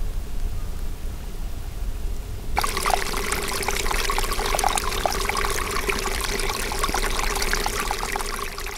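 A small trickle of water running over mud and through grass in a ditch. It starts suddenly about two and a half seconds in, as a steady splashing trickle. Before that there is only a low rumble.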